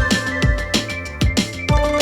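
Electronic background music with a steady beat: kick drum, hi-hats and held synth notes.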